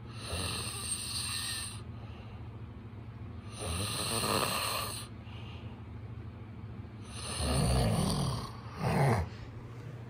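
A sleeping man snoring: three loud snores a few seconds apart, the last one with a short second push at its end.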